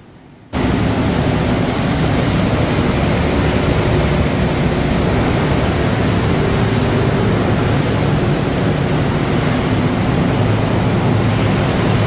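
Steady, loud machinery noise with a low hum from a running continuous wood-chip carbonization production line. It starts abruptly about half a second in.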